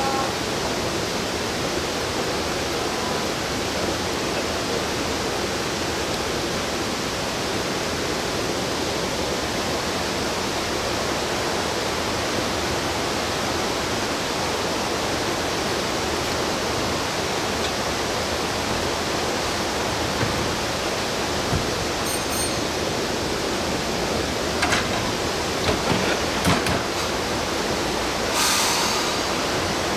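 A steady rushing noise, even and without any tone in it. A few light clicks and knocks come about three-quarters of the way through, and a short hiss follows near the end.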